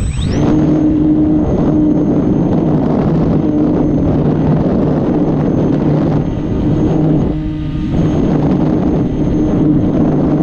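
Electric RC glider's brushless outrunner motor spooling up with a quick rising whine, then running steadily at power, its high whine over the propeller's hum and heavy wind rush on the onboard camera's microphone.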